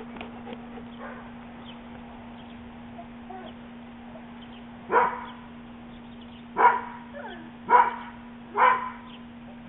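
A dog barking four times in short single barks, about a second apart, starting about halfway through.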